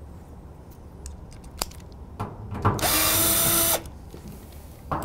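Cordless drill-driver with a T30 Torx bit running for about a second, spinning out a side-panel fastener, with a steady motor whine. A few light clicks come just before it starts.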